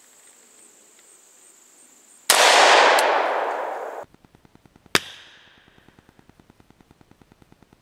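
Smith & Wesson Governor revolver firing a single .410 shell of 000 buckshot: one loud, sudden report a little over two seconds in, echoing away over about a second and a half. About two and a half seconds later comes a second sharp crack with a shorter tail.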